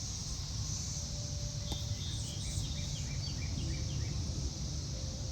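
Steady high drone of a cicada chorus, with a low rumble underneath. About two seconds in, a bird gives a quick run of short chirps that step downward in pitch.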